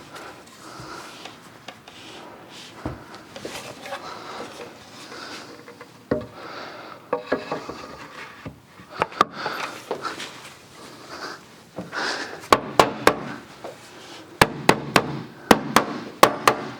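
Teak chair parts handled and rubbed against each other as the pieces are fitted together. Near the end comes a quick run of sharp knocks, several a second, as a rubber mallet taps the glued teak joints into place.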